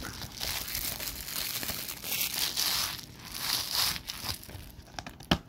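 Plastic shrink wrap being torn and peeled off a DVD case, a long run of crinkling and tearing. Then quieter handling and a single sharp click near the end.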